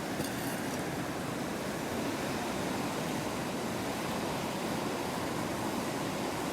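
Wood fire burning in a small flame stove, a steady rushing noise with a brief crackle just after the start.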